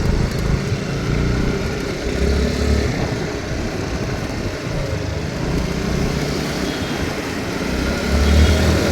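Motorcycle engine running, with louder low surges about two and a half seconds in and again near the end.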